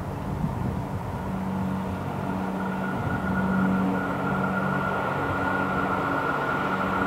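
Approaching train, not yet in view, a steady whine that grows slowly louder, a higher note joining a few seconds in.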